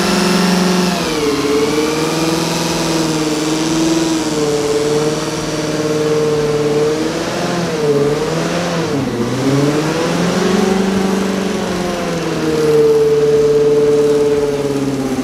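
A ute's engine is revved hard and held at high revs in a burnout, spinning the rear tyres. The pitch swings up and down throughout, sags about eight to nine seconds in, then climbs back and holds highest near the end.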